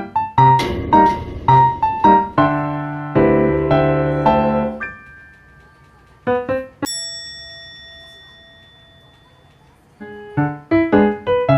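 Background piano music: a light melody of quick notes and a held chord that fades to a lull, broken by one bright bell-like note about seven seconds in, before the quick notes resume near the end.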